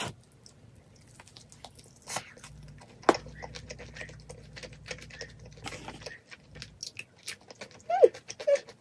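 Close-up chewing and biting of glazed Puradak Black Alio fried chicken, a run of short crunchy clicks. A brief falling vocal sound comes near the end.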